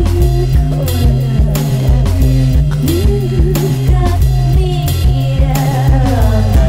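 Song playing: a steady drum beat over a repeating bass line, with guitar and wavering melodic lines and no words sung.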